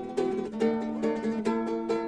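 Background music: a plucked-string tune, ukulele- or mandolin-like, with quick picked notes.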